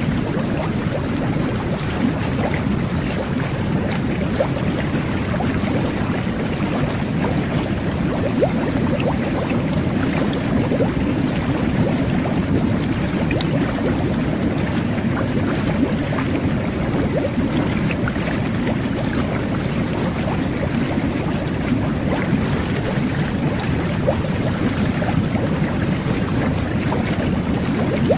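Jet bath (whirlpool tub) running: a steady churning rush of aerated water with many small bubble pops.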